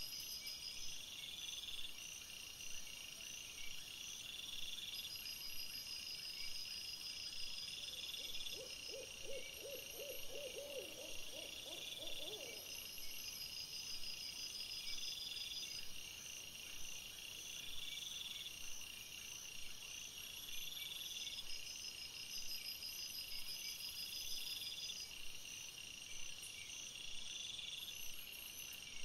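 Night chorus of calling insects: short high trills repeating about every two seconds. About eight seconds in, a lower pulsing call rises and lasts some four seconds.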